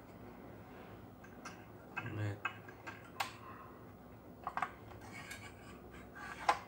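Irregular plastic clicks and knocks of a Total cordless circular saw being handled: its lock-off button and trigger pressed and the lower blade guard moved, with one duller knock about two seconds in and the sharpest click near the end.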